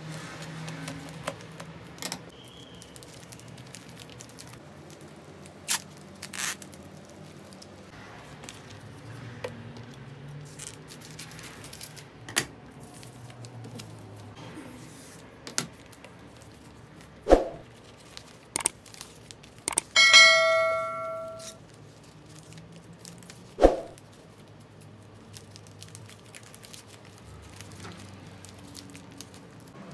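Wrapping paper being handled, cut with scissors and folded, with scattered small crinkles and snips and two sharp knocks on the table. Partway through, a single bell-like ding rings out and fades over about a second and a half.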